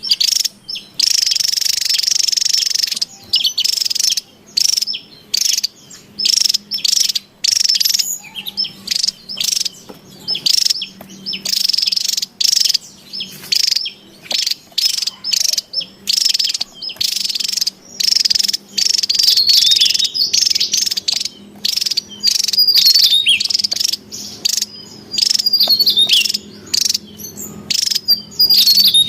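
Javan tesia singing: rapid, high-pitched chattering phrases, one after another with only short gaps between them.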